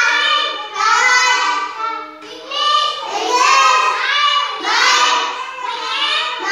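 A group of young children chanting together in a sing-song voice, phrase by phrase, in the way of a classroom recitation of a lesson from the blackboard.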